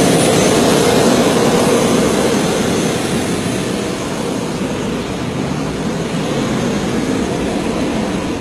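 Rolls-Royce Allison 250 helicopter turboshaft engine of an MTT Y2K turbine superbike running loud and steady as the bike rides off, easing slightly about three seconds in as it pulls away.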